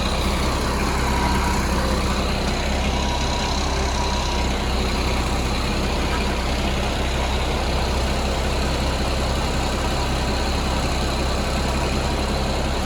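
Heavy diesel engine of a concrete mixer truck running steadily at a low idle, an even low drone.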